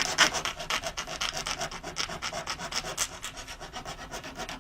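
Treadle-powered fret saw cutting through two layers of wood veneer, the blade rasping in quick, even strokes as the foot pumps the treadle.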